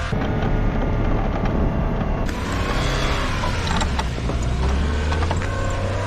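A motor vehicle's engine running steadily, a low hum with scattered clicks and rattles over it.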